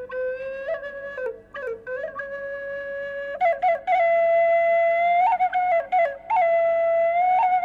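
Khlui, the Thai bamboo duct flute, playing a slow solo melody: long held notes broken by quick ornamental flicks and grace notes. About three and a half seconds in the line moves higher and louder.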